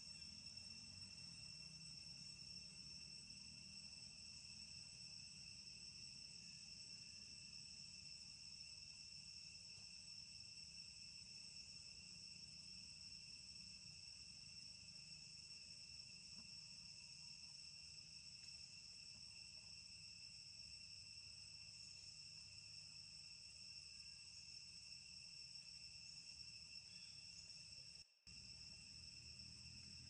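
Faint, steady high-pitched chorus of insects trilling without a break, over a low background rumble; the sound cuts out for a moment near the end.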